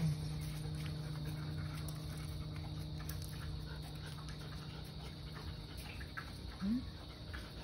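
Dogs panting over a steady low hum, with a short rising whine near the end.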